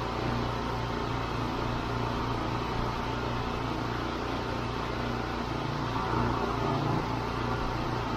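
Steady low drone of the concrete pump truck's engine running, with no distinct strokes or changes.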